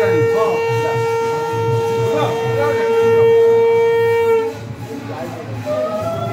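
Conch shells blown: one long steady blast that cuts off about four and a half seconds in, then a second, higher blast starting near the end and rising slightly in pitch.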